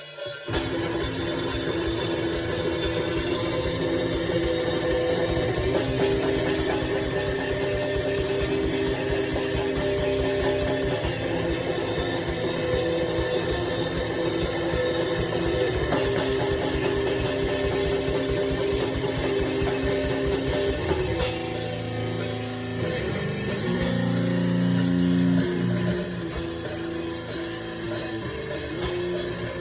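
Grindcore band playing: fast, dense drumming under distorted electric guitar riffs, loud throughout. About two-thirds of the way through the riff changes to lower notes and the drumming thins out.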